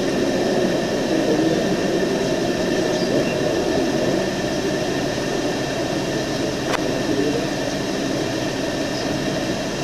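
Steady rushing noise, strongest in the low range, with one faint click about seven seconds in.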